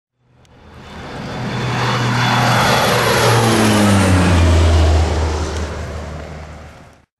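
Light propeller airplane flying low past: its engine grows louder, peaks about four seconds in, then fades with its pitch dropping as it goes by. The sound is cut off abruptly near the end.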